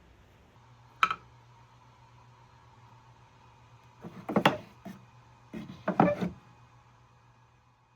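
A steady low hum with a faint steady tone over it, broken by a sharp click about a second in and then two short bunches of knocks and clatter, as of hard objects being handled.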